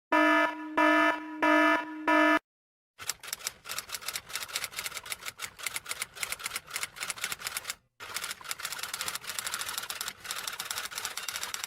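Four short, evenly spaced electronic beeps, then, after a brief pause, a long run of rapid typing clicks like a typewriter, broken once by a short gap.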